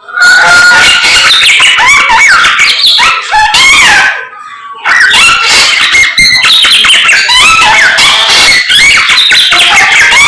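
Samyong bird singing loudly and energetically: a rapid, varied stream of whistles, chatters and sliding notes, with a short break about four seconds in.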